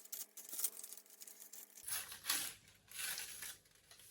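Faint rustling and handling noise, with a few soft knocks and scrapes.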